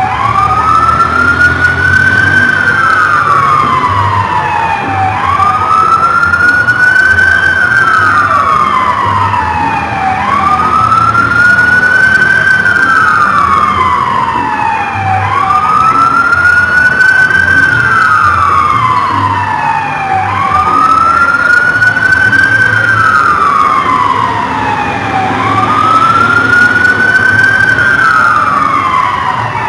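Police car siren in wail mode: a quick rise in pitch, a brief hold at the top, then a slower fall. It repeats about every five seconds, six times over.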